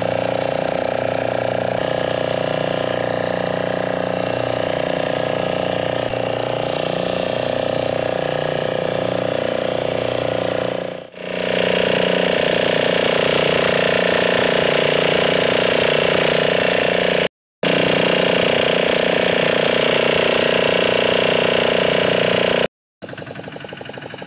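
Fishing boat's engine running steadily at speed, heard from on board, with a steady rapid mechanical beat. It breaks off briefly twice, and near the end it runs much quieter.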